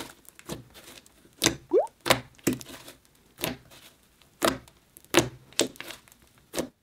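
Fingers pressing and poking a thick, soft slime, making an irregular series of sharp squishy clicks and pops, with one short rising squeak about two seconds in. The sound cuts off just before the end.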